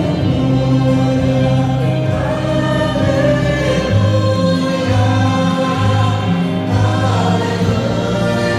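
Vocal group singing a Christian gospel song, several voices in harmony over sustained low bass notes.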